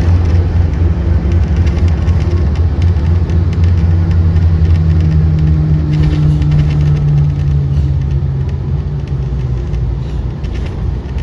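Steady low rumble of a car driving along a road, engine and road noise with a faint hum held underneath, easing slightly near the end.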